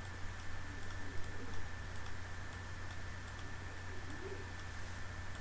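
Faint computer mouse clicks, a few a second and irregular, over a steady low electrical hum.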